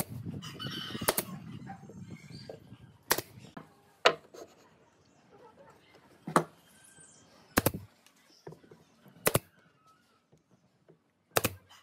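Pneumatic brad nailer driving nails into pine boards: sharp snaps, about eight shots with a second or more between them, three of them quick double shots near the end.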